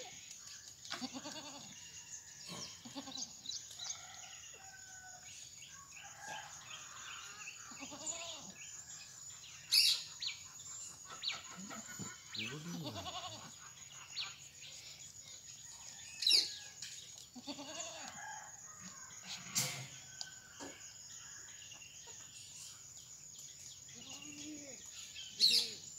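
Farmyard animal calls at intervals, goats bleating and chickens calling, with a few short, sharp calls standing out.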